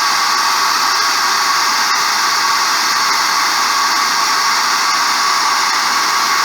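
Hand-held hot-air blower running steadily at full speed, a loud rushing airflow with a high motor whine, used to dry fresh spray paint quickly.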